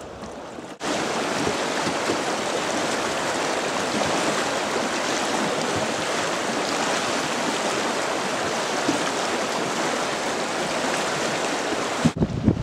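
River water rushing over boulders in a fast, rocky stretch: a steady, even rush that cuts in abruptly just under a second in. Wind buffets the microphone in the last moment.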